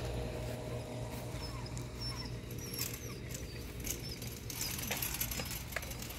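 American Staffordshire Terrier puppies giving short, high-pitched squeaks and whimpers over a steady low rumble.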